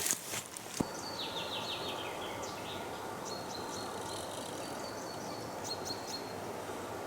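Songbirds singing over a steady background rush in a forest: one song is a quick run of notes falling in pitch about a second in, followed by repeated short high notes later on.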